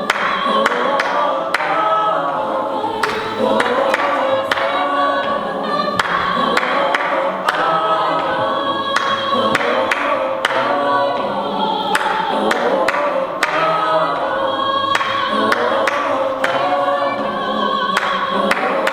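High school madrigal choir singing a holiday piece in parts.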